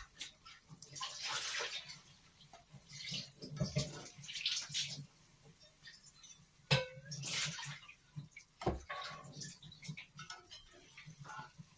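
Hot oil sizzling in surges as egg-and-potato balls deep-fry, while a slotted spoon turns them and lifts them out. A single sharp knock about two-thirds of the way through.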